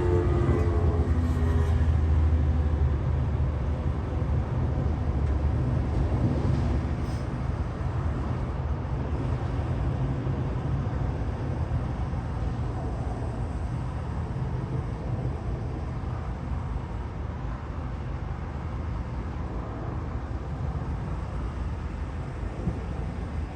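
JCB backhoe loader's diesel engine running steadily, slowly fading over the stretch.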